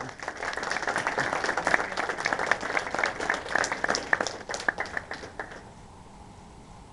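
Audience applauding with dense clapping, which stops about five and a half seconds in.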